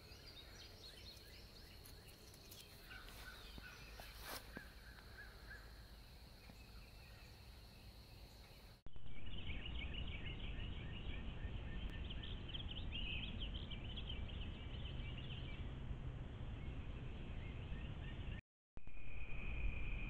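Outdoor yard ambience: faint and steady at first with a few scattered chirps. About nine seconds in it cuts abruptly to louder ambience full of busy high chirping, like birds or insects. Near the end a steady high trill like crickets takes over.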